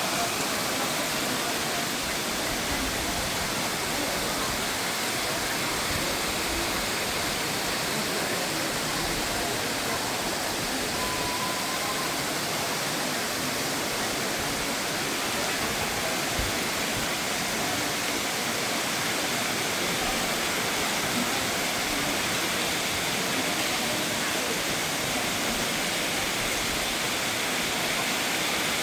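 Steady heavy rain falling, a continuous even hiss.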